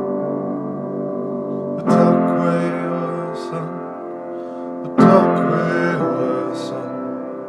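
Instrumental music with no voice: sustained ringing chords, with a new chord struck about two seconds in and again about five seconds in, each left to ring and fade.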